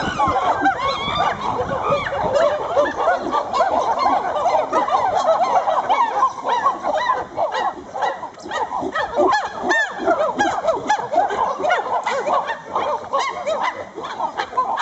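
A dense chorus of many animals calling at once. Short calls rise and fall in pitch and overlap without a break.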